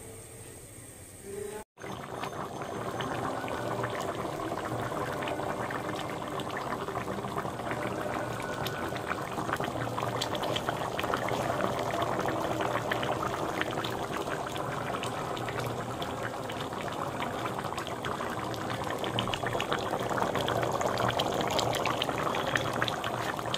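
Thick fish-and-pumpkin curry bubbling in a metal kadai, a dense crackle of popping bubbles that grows a little louder toward the end. The sound drops out for an instant near the start.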